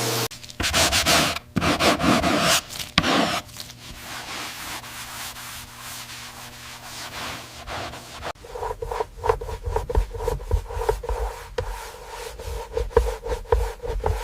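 Rubbing, sanding-like strokes on a surface, loud in the first few seconds, then quieter. From about eight seconds in, a steady hum with irregular taps and clicks takes over.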